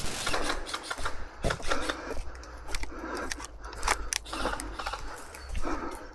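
Airsoft guns firing in scattered, irregular sharp clicks and snaps, with a low wind rumble underneath.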